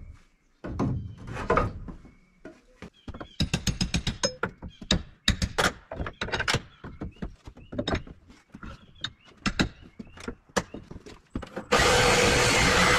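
Scattered knocks and clicks of wood and tools being handled during framing work, with a quick run of light taps about three seconds in. Near the end a power drill starts up suddenly and runs loudly.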